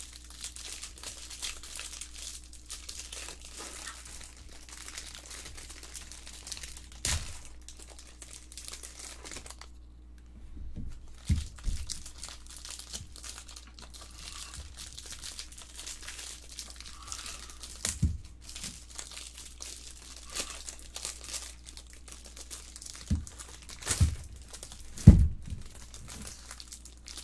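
Plastic cellophane wrappers on trading card packs crinkling and tearing as they are peeled open by hand. A few short thumps come through, the loudest near the end.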